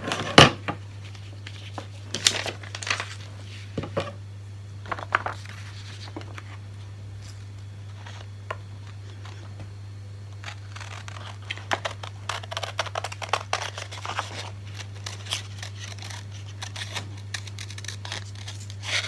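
Scissors cutting out a paper bird shape: irregular snips and paper rustles with short pauses, busiest about two thirds of the way through. A steady low hum runs underneath.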